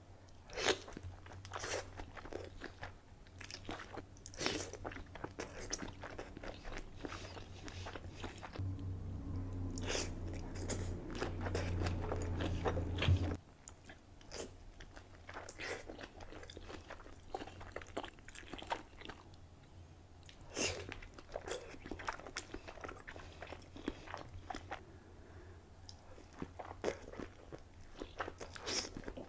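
Close-miked eating sounds from a seafood boil mukbang: repeated biting, crunching, wet chewing and mouth clicks. A low hum sits underneath for a few seconds about halfway through and cuts off suddenly.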